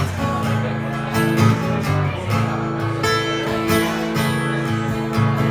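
An acoustic string trio playing a folk/bluegrass tune: a strummed acoustic guitar, a bowed fiddle and an upright bass, with long held notes over a steady strum.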